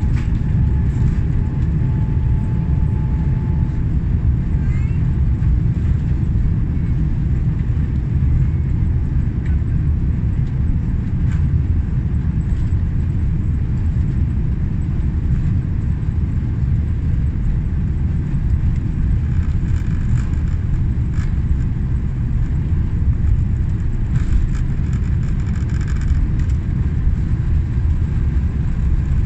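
Jet airliner cabin during the takeoff roll: a steady, loud rumble of the engines at takeoff thrust and the wheels on the runway. A thin engine whine, just risen in pitch, holds for the first few seconds.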